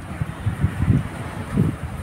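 Wind buffeting a phone's microphone in irregular low rumbling gusts.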